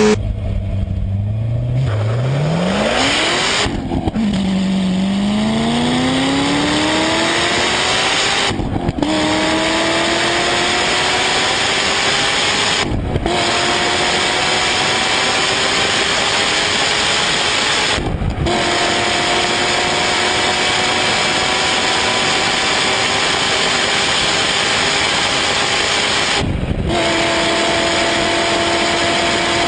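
A high-performance car's engine accelerating hard through the gears. Its pitch climbs steadily and breaks five times, about 4, 9, 13, 18 and 27 seconds in, as it shifts up. It drops back after each shift, and the climbs get longer with each higher gear.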